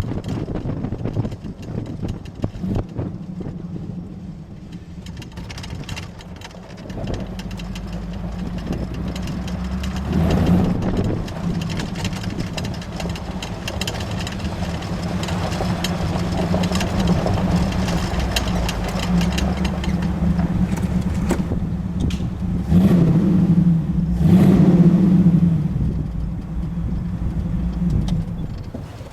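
Jeep CJ engine running during a drive, with a steady low hum that swells louder briefly about ten seconds in and again for a couple of seconds near the end.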